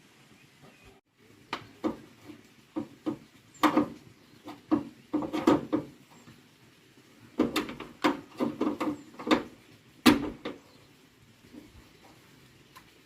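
A run of irregular knocks and clatters, about a dozen to twenty over some nine seconds, with the loudest one about ten seconds in.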